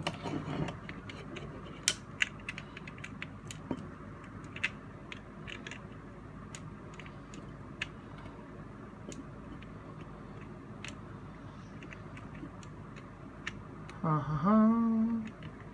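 Scattered small plastic clicks and ticks as a transforming toy's shoulder joint is worked apart by hand. Near the end a man hums one short rising note.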